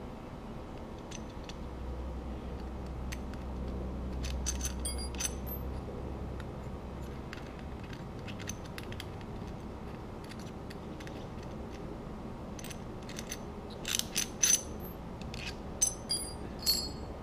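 Small plastic and metal parts clicking and rattling as a jet ski throttle housing is taken apart by hand, with a few louder, sharper clicks and taps near the end as screws and pieces are set down on a concrete floor. A low steady hum sits underneath.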